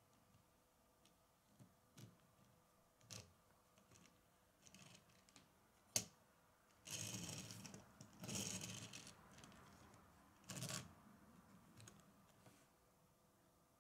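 Small Lego monster truck handled on a wooden tabletop: scattered light clicks and taps of plastic on wood, a sharp tap about six seconds in, then three short scraping rolls of its rubber tyres across the wood.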